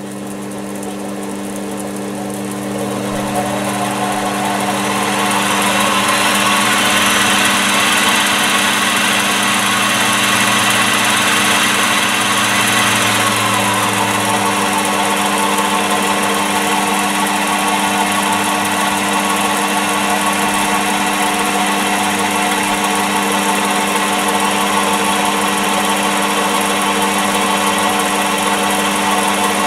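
Small electric motor driving a belt-driven milling spindle, powered through a variable-voltage adapter. Its whine rises as the speed is turned up over the first several seconds, holds, then drops about thirteen seconds in as the speed is turned down, and it runs steadily at the lower speed after that.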